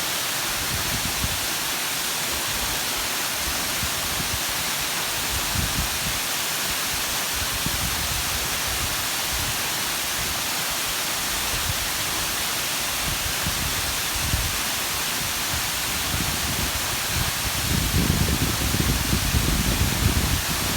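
Ryuzu Falls, a cascading waterfall, rushing in a steady, even hiss. Irregular low rumbling runs underneath and grows heavier about three seconds before the end.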